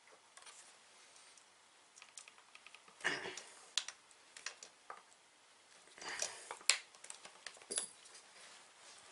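Small clicks, taps and scrapes of a hex key and bolts being worked out of the plastic engine cover of a Gardenline 4-in-1 petrol multi-tool. The louder clicks come about three seconds in and again about six to seven seconds in.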